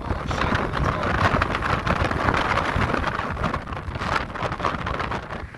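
Strong, gusty storm wind from an approaching hurricane buffeting the microphone, a loud rushing hiss over an uneven low rumble.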